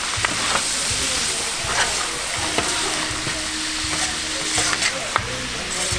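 Pork offal sizzling on a large, hot steel griddle: a steady frying hiss, with a metal spatula clinking and scraping against the plate a few times as the pieces are stirred.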